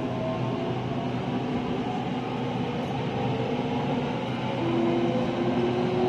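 Electric commuter train running, heard from inside the carriage: a steady rumble with a motor whine that slowly rises in pitch as the train picks up speed.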